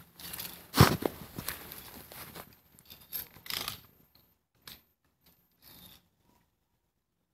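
A single sharp crack from a BB rifle about a second in, followed by rustling and a few light clicks and scrapes as the rifle is handled and clothing brushes the microphone.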